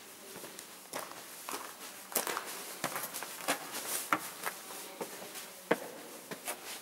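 Footsteps walking along a cave walkway: irregular scuffing and tapping steps, about two a second, one sharper step near the end.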